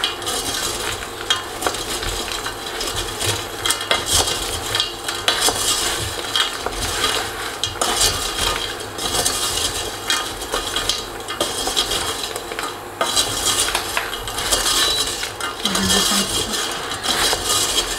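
Wooden spatula stirring hazelnuts and almonds coated in crystallised sugar in a stainless steel saucepan: a continuous scraping and rattling of the nuts against the pan, made of many short strokes. The sugar has set back into grains around the nuts and is being stirred until it melts again into caramel.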